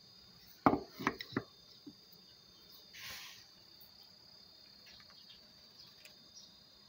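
A steel chisel set down on a wooden whetstone holder: three sharp knocks in quick succession about a second in, then a short hiss. A faint steady high tone runs underneath.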